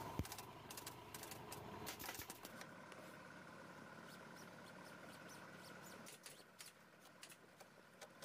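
Pneumatic upholstery staple gun firing staples into sofa fabric and frame: a quick run of sharp clicks in the first couple of seconds, then fewer clicks over a faint steady hum.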